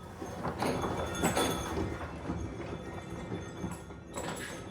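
A strong wind gust rumbling over the microphone, with a heavy wind chime clattering and knocking hard in it. The knocking is densest about a second in and picks up again near the end.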